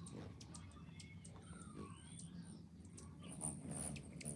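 Faint high-pitched chirps from hummingbirds at the feeders, with scattered light clicks.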